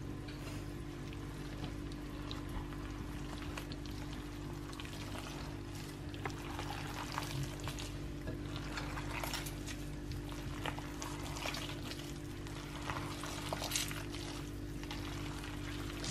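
Hands kneading a wet meatloaf mixture of raw minced beef in a glass bowl: soft squelching and squishing, busier in the second half, over a steady low hum.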